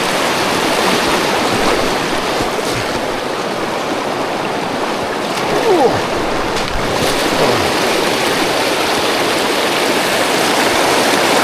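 Fast-flowing river water rushing steadily over rocks, with a few faint short pitch glides about six and seven seconds in.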